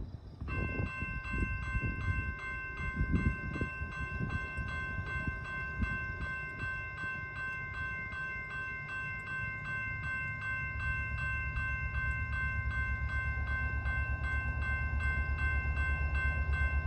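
A railroad crossing bell starts ringing about half a second in, a rapid, even ding repeating about four times a second, as the California Zephyr passenger train approaches. The train's low rumble grows steadily louder through the second half.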